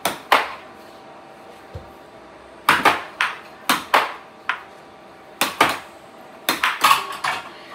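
Air hockey puck clacking against the mallets and the table's rails in quick exchanges of play. The sharp knocks come in clusters: a couple right at the start, several about three to four seconds in, and a fast run of hits in the last two seconds, some with a short ringing after them.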